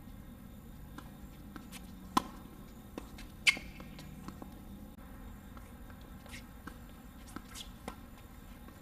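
Tennis ball being hit by rackets and bouncing on a hard court during a doubles rally: a handful of sharp pops spread through, the loudest about three and a half seconds in.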